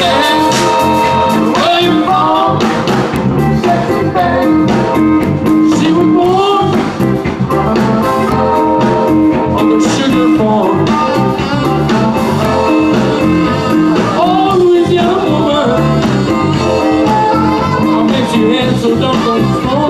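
Live zydeco band playing: accordion, electric bass, drum kit, electric guitar and saxophone, picked up by an iPad's microphone.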